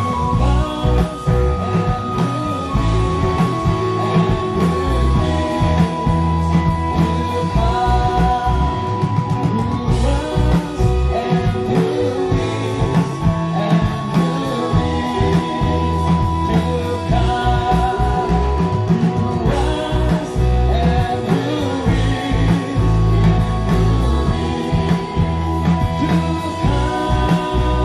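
Live worship band playing a song through a PA: drum kit keeping a steady beat, electric guitar, and several voices singing together into microphones.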